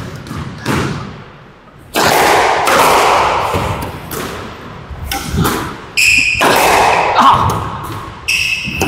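Squash rally: the ball is struck hard with rackets and smacks the court walls, several sharp hits ringing in the enclosed court, with brief shoe squeaks on the floor.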